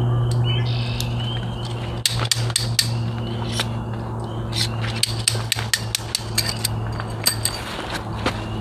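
Irregular sharp metallic clicks and clinks, starting about two seconds in, from metal tent stakes and poles being handled while a tent is struck. Under them runs a steady low hum.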